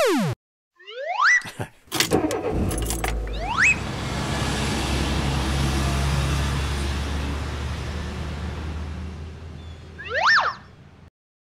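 Cartoon truck engine sound effect: a few knocks about two seconds in, then a steady running engine that grows louder and fades away as the truck drives off. Quick rising whistle-like glides sound about a second in, near four seconds, and again near the end.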